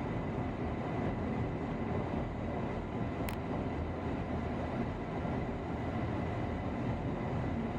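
Steady road and engine noise of a minivan towing a trailer, heard from inside the cabin while driving, with one faint click about three seconds in.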